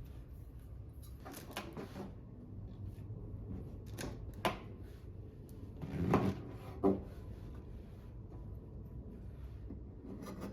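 Kitchen handling sounds during vegetable prep: a few separate knocks and clatters, with a low steady hum underneath.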